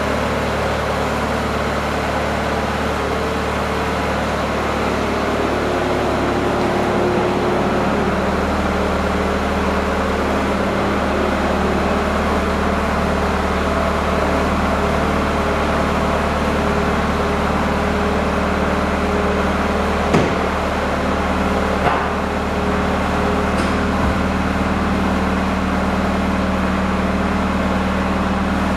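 Bobcat loader's engine running steadily, with two sharp knocks about twenty seconds in.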